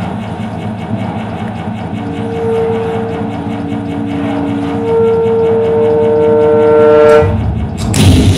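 Contemporary chamber music for saxophone, percussion and electronics: a low, pulsing texture with a fast, even beat, over which long held saxophone notes enter about two seconds in and shift in pitch. Near the end a low rumble swells and a loud hit strikes.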